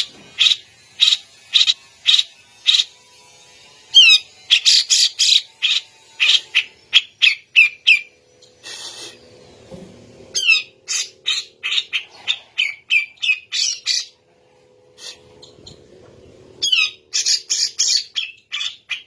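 Grey-cheeked bulbul (cucak jenggot) calling in full, busy song: a string of sharp single notes about two a second, then three bouts of rapid, falling, harsh notes, each a few seconds long.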